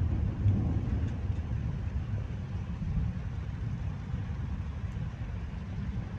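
Deep, low rumble of a thunderstorm, loudest about half a second in and slowly easing off.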